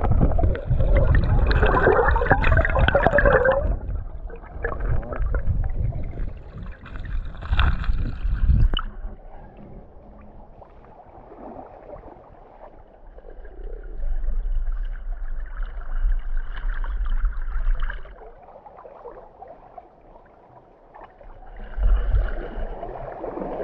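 Water gurgling and sloshing, with heavy low rumble on the microphone for roughly the first nine seconds, then quieter with a couple of swells.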